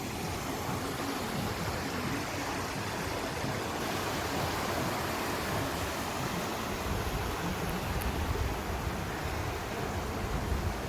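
Swollen flood river rushing fast, a steady noise of turbulent water, with a low rumble strengthening from about seven seconds in. The current is cutting away the soil of the bank.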